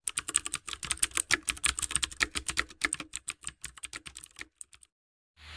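Computer keyboard typing sound effect: a rapid run of key clicks that thins out and stops shortly before the end.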